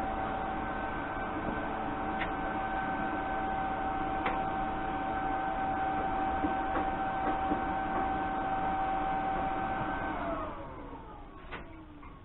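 An electric motor running steadily with a whine, then switched off about ten seconds in, its pitch falling as it spins down to a stop.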